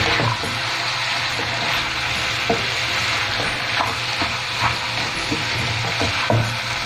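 Shredded vegetables sizzling in a hot frying pan as a spatula stirs and tosses them, with irregular light taps and scrapes of the spatula against the pan.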